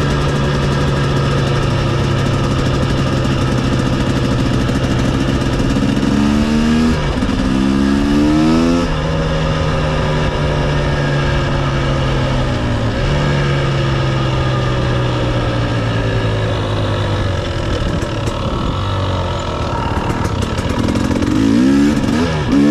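Dirt bike engine running at a steady cruising pitch. About six seconds in it revs up in a few rising sweeps, then settles. It drops a step a little before halfway, eases off gradually, runs unevenly at low speed, and revs again near the end.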